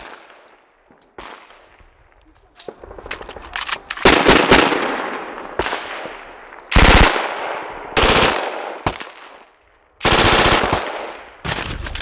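Military machine guns and rifles firing: single shots and several rapid automatic bursts, each trailing off in an echo.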